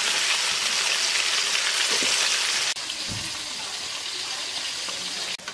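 Pieces of stingray frying in hot oil in a kadai: a steady, loud sizzle that drops to a quieter sizzle a little under three seconds in.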